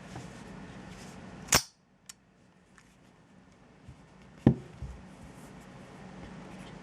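Sharp metallic snaps from a reassembled Browning Buck Mark .22 semi-auto pistol being handled: two loud snaps about three seconds apart, with a few lighter clicks.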